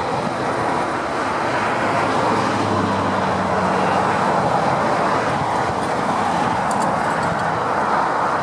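Steady motorway traffic noise: tyres and engines of lorries and cars passing at speed. A passing lorry's low engine hum stands out in the middle.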